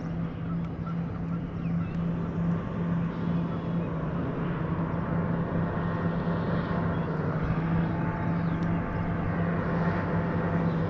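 A motorboat's engine running steadily on the lake, a low even hum that grows slightly louder.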